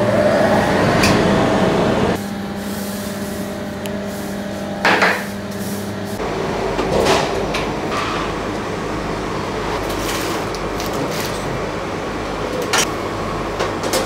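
Steady hum of commercial bakery ovens and their fans, broken by several short clatters of metal baking trays and racks being handled, the loudest about five seconds in.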